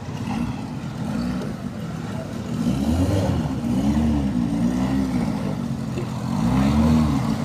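Motorboat engine running as the boat moves through floodwater, its pitch rising and falling repeatedly over a steady low rumble.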